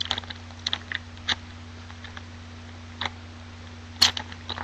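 Foil trading-card pack being opened and cards handled: a scatter of short crinkles and clicks, the loudest about four seconds in.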